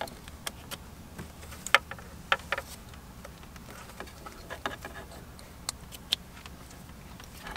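Scattered light clicks and taps, about a dozen at uneven intervals, from wiring harness connectors and plastic dash parts being handled during a head unit install. The sharpest click comes a little under two seconds in.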